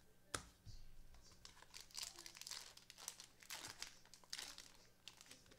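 Quiet crinkling and tearing of a foil trading-card pack wrapper being opened by hand, in irregular rustling bursts, with one sharp tap just before it starts.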